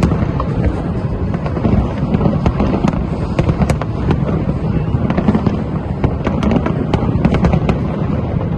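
Fireworks display going off continuously: a dense low rumble of bursts with many sharp cracks and crackles over it.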